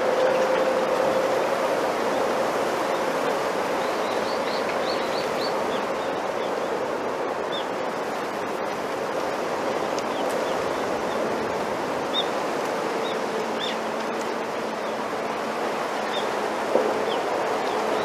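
Bamboo leaves and stems rustling in the wind as a steady, even rush, with a few faint high chirps over it, a quick run of them about four seconds in.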